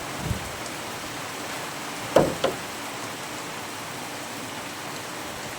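Heavy rain on a workshop roof, a steady hiss, with two short knocks about two seconds in.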